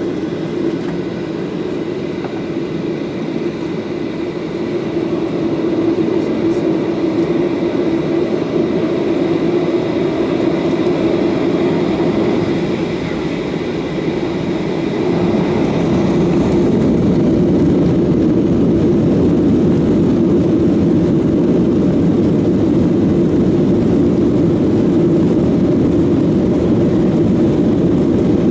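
Boeing 737-800's CFM56-7B jet engines heard from inside the cabin, running steadily as the jet lines up on the runway, then spooling up to takeoff thrust about sixteen seconds in and holding louder and steady as the takeoff roll begins.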